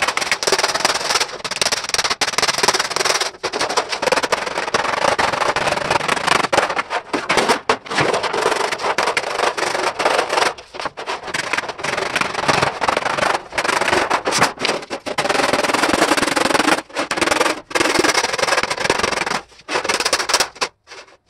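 Wooden mallet beating a sheet-metal panel in a fast, steady stream of blows, pausing briefly every few seconds. The blows knock dents out of the panel to flatten it back into place without stretching the metal.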